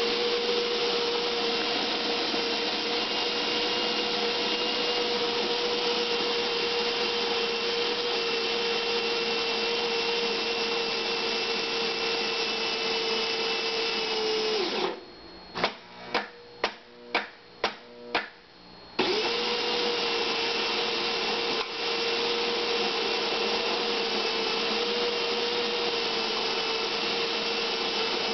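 Solis Palazzo super-automatic espresso machine working through a double-espresso cycle: a steady motor whir with a constant hum for about fifteen seconds, then about seven short sharp ticks over four seconds, then the steady whir again.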